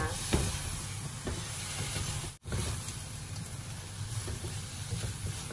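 Shrimp sizzling in a nonstick frying pan as they are stir-cooked with a spatula, with a sharp knock of the spatula against the pan about a third of a second in. The sound cuts out for an instant near the middle.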